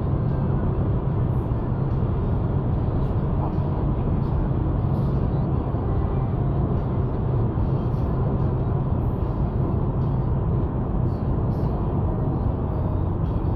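Inside a car's cabin at high highway speed: the engine drones steadily under a constant rush of road and wind noise.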